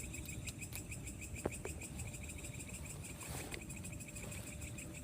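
Night insects, crickets, chirping in a steady pulsing rhythm, with a couple of faint short clicks about a second and a half in and a brief soft rustle a little past the middle.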